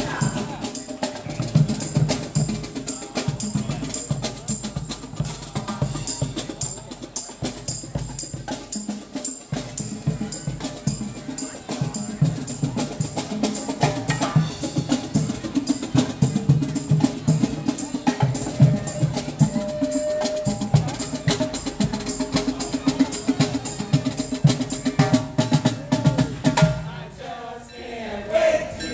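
Marching band playing brass with drums and percussion on a steady beat, dropping away briefly near the end.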